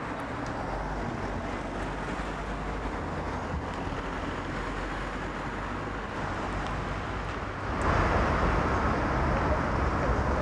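Steady road traffic noise from passing cars, abruptly louder a little before the end.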